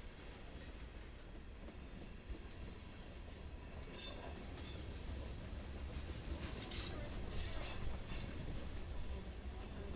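Freight cars of a manifest train rolling past: a steady low rumble of wheels on rail, with brief high metallic squeals from the wheels about four seconds in and again a few seconds later.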